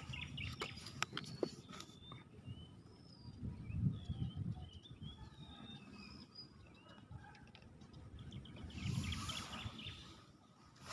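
Small birds chirping, many short calls that rise and fall in pitch, over a low rumble of handling or wind on the microphone. A few sharp clicks sound in the first second and a half, and a brief rustling burst comes about nine seconds in.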